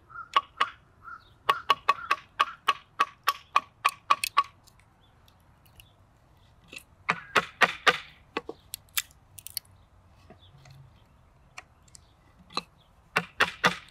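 Wooden baton striking the spine of a knife blade to drive it through a stick, a run of sharp ringing knocks at about three a second for the first four seconds. After a pause, a second quick flurry of knocks comes around seven seconds in, followed by a few scattered ticks and another short run of knocks near the end.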